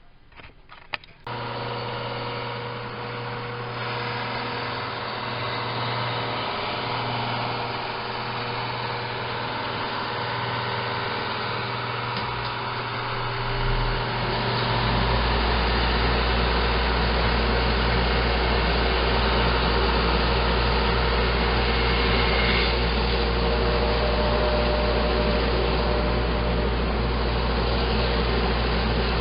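A homemade drum sander with a motor-driven conveyor belt starts up about a second in and runs with a steady motor hum. About halfway through, a deeper, louder running sound joins in and holds steady.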